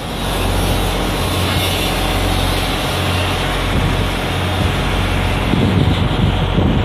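Steady mechanical noise over a low, even hum, from machinery running nonstop; faint voices come in near the end.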